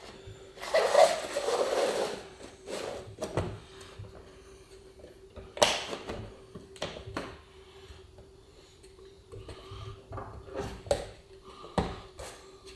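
Brittle window trim being pushed and pressed into place around a bus window frame by hand: a second or so of scraping and rustling near the start, then scattered sharp clicks and taps, over a faint steady hum.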